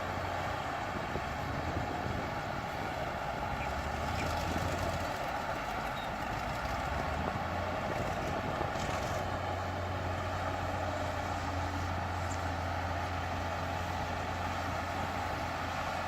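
Diesel engine of heavy earthmoving machinery running steadily with a low drone.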